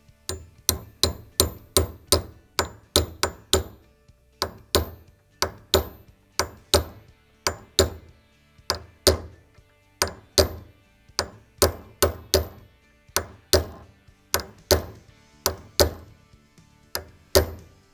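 A hammer striking a brass sight punch to drift the front sight into the dovetail of a stainless steel Smith & Wesson M&P pistol slide clamped in a bench vise. Dozens of sharp taps, about two or three a second, come in runs with short pauses.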